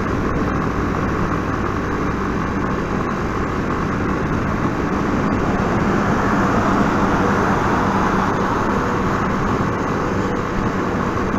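Yamaha Fazer 250 motorcycle cruising at road speed: steady wind rushing over the microphone with the engine's even hum underneath.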